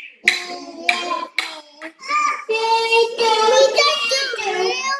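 A young child singing in short phrases, then a longer stretch of held notes that slide up and down in pitch from about three seconds in.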